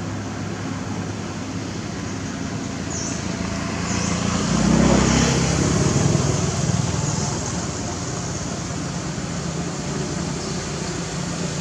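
Steady outdoor background noise that swells louder about four and a half seconds in and eases off again a couple of seconds later.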